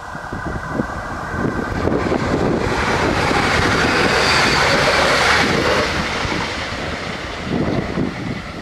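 Regional passenger train passing over a level crossing, building from about two seconds in, loudest in the middle and easing off over the last few seconds. There is wind on the microphone.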